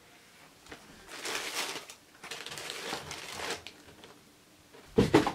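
Tissue paper rustling and crinkling in two stretches as a shoe is unwrapped and lifted out of a cardboard shoebox, with a short thump near the end.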